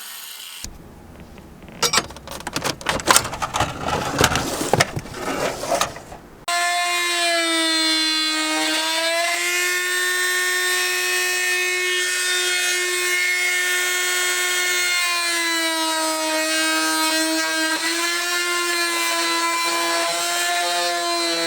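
Rough, irregular bursts of tool noise for the first few seconds. Then a high-speed cut-off wheel whines steadily, its pitch dipping briefly a few times as it bears into the metal shifter bracket.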